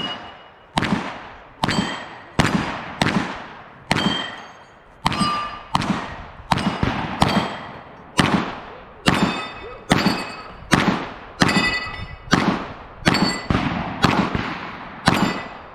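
A string of about twenty gunshots fired a little under a second apart as a competitor shoots a 3-gun match stage. Many shots are followed by a short ringing tone.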